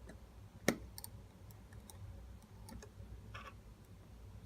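Light clicks and ticks of small tools and tiny screws against an iPhone 6's internals during reassembly, with one sharper click under a second in.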